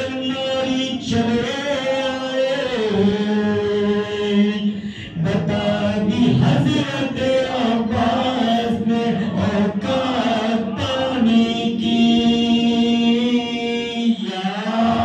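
A man singing a Shia noha lament into a microphone, amplified, in long held, sliding notes. Under the voice, a crowd beats its chests (matam) in sharp, evenly timed slaps.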